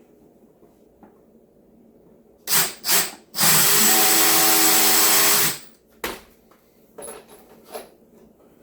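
Power drill in wood: two short blips of the trigger, then a steady run of about two seconds that stops abruptly, followed by a sharp click and a couple of light knocks.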